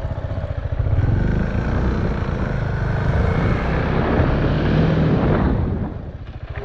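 KTM Duke motorcycle engine pulling away under throttle, with wind noise on the helmet-mounted microphone, then the throttle closes about six seconds in and the engine drops back to a low, slow thumping.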